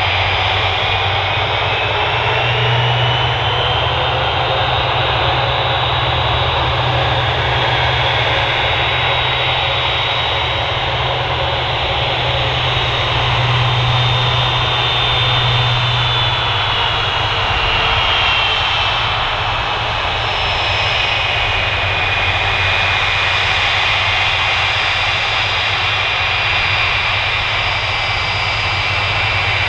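Boeing 767-300ER's Rolls-Royce RB211 turbofans at low taxi power as the airliner taxis toward the listener: a steady jet rumble with a high whine that slowly drifts up and down in pitch.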